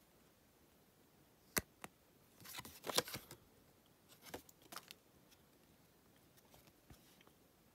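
Stack of Topps Match Attax trading cards handled in the hands, cards slid and flicked against each other: a few sharp clicks and snaps, the loudest about three seconds in, then only faint ticks.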